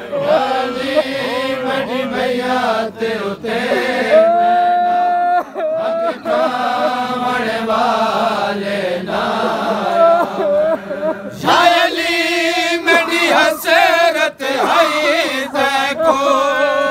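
Men chanting a Punjabi noha (Shia mourning lament): a lead reciter's long, wavering held notes with other men's voices joining, the sound growing fuller about two-thirds of the way through as more voices come in.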